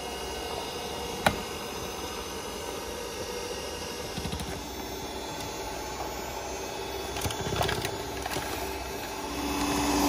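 Electric hand mixer running with a steady motor hum, with one sharp click about a second in. About nine seconds in it gets clearly louder as the beaters work into the batter of flour and wet ingredients.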